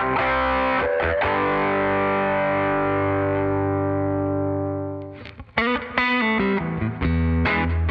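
G&L ASAT Classic electric guitar played through an amp: a chord struck about a second in rings out and slowly fades for several seconds. After a brief gap, a run of picked notes and chords begins.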